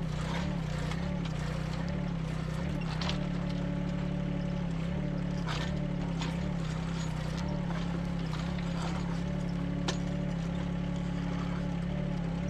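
Nante NT12 mini excavator's engine running under hydraulic load, its pitch dipping and recovering over and over as the ripper tooth is worked through rooty ground. A few sharp knocks and scrapes sound from the tooth and arm, one about three seconds in, one near the middle and one near the end.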